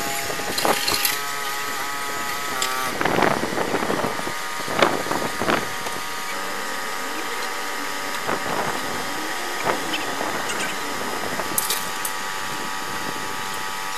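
Monster truck's engine running with a steady high-pitched whine whose pitch shifts once about three seconds in, with a few louder irregular clatters and knocks between about three and six seconds in.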